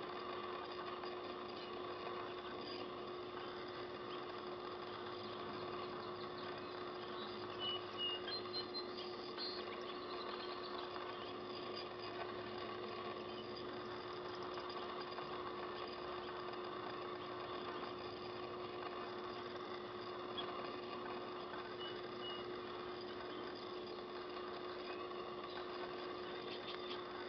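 A steady mechanical hum holding one constant low tone, with a few faint, short high chirps about eight seconds in and again near the end of the third quarter.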